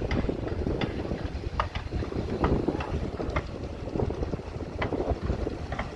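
Sumitomo SH210 hydraulic excavator working, its diesel engine giving a steady low rumble, with sharp clanks and knocks roughly once a second.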